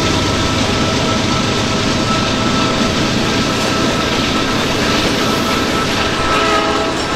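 Freight train rolling past: a steady, loud rumble of wheels on rail, with thin steady whining tones from the wheels above it.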